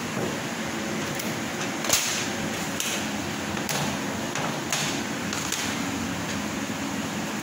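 Laser cutting machine running with a steady hum, broken by short hissing swishes about once a second.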